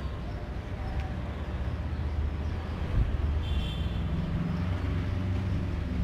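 Steady low outdoor rumble of urban background noise, with a brief high-pitched tone about three and a half seconds in.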